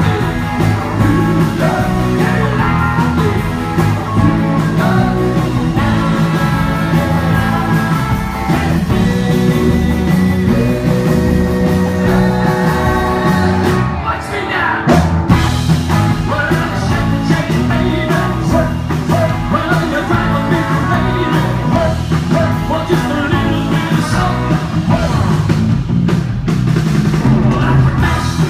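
Live rock and roll band playing, with electric guitar, drums and singing. About halfway through, the band briefly drops out on a few sharp hits, then comes back in.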